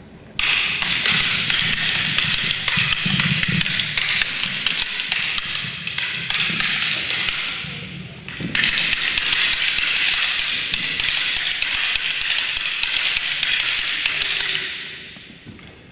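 Wooden fighting sticks clacking together in fast, dense strikes during a two-person stick-fighting drill, in two long runs with a short break about eight seconds in, fading out near the end.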